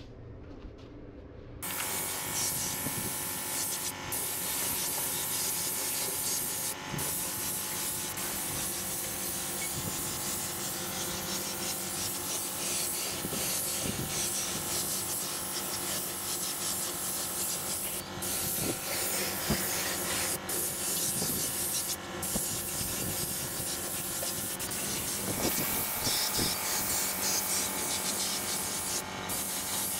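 Compressed-air paint spray gun hissing steadily as it sprays paint. The hiss starts about two seconds in and has a few very brief breaks.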